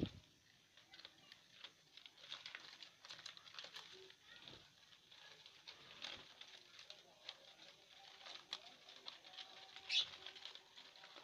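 Lovebirds rustling and tearing at dry corn husks, with faint scattered pecking clicks, a flutter of wings, and a short high chirp near the end.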